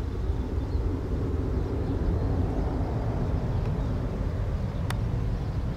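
Airbus A320-214's CFM56-5B turbofan engines at takeoff and climb power, a steady low rumble from the airliner climbing away. A single sharp click sounds near the end.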